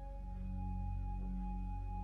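Background ambient music: long held tones over a deep low drone, with a new, higher note coming in at the start.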